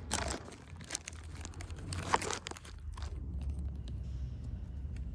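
Handling noise as a car part is worked by hand: scattered crinkly scrapes and clicks, with one sharper click about two seconds in, over a steady low hum.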